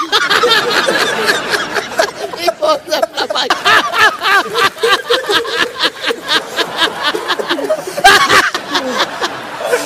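A man laughing heartily in a long run of short bursts, with a louder burst about eight seconds in.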